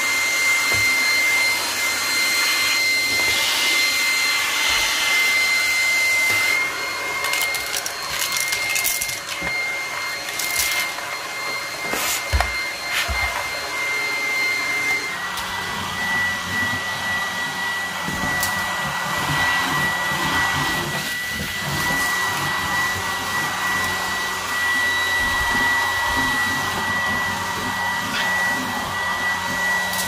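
Dreame T20 cordless stick vacuum running with a steady high-pitched motor whine and rushing airflow. In the first half, scattered clicks and ticks come as it sucks debris from a sliding-door track through the crevice tool. About halfway through, the whine settles slightly lower and a low hum joins as a floor head runs over a hardwood floor.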